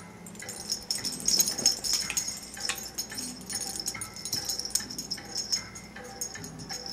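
Dog collar tags jingling and clinking in quick, irregular bursts as a beagle and a chihuahua tussle over a rawhide bone.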